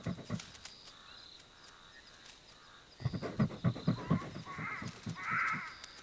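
Porcupine grunting and snuffling in a quick run of short, low pulses about three seconds in. After that a harsh, rasping animal call repeats about once a second, getting louder toward the end.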